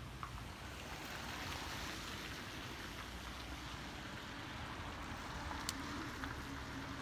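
Wet-street traffic ambience: a steady hiss of car tyres on wet, slushy asphalt over a low engine rumble. A single sharp click sounds about five and a half seconds in.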